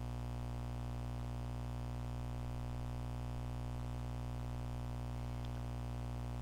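Steady low electrical hum, mains hum in the recording, with several steady overtones and no other clear sound.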